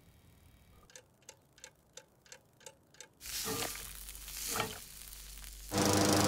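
A montage of cartoon sound effects. First comes steady ticking, about three ticks a second. From about three seconds in, an egg sizzles in a frying pan, with two swishes over it. Near the end a push lawn mower's engine starts up and runs loudly.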